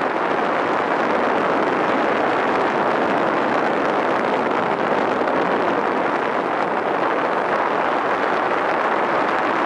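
Steady rushing of wind and choppy sea water.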